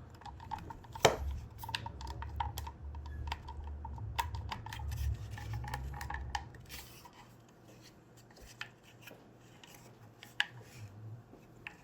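Plastic parts of a car cupholder assembly clicking and rattling as they are handled and worked apart, with one sharp click about a second in. After about six seconds the handling goes quieter, with only a few light clicks.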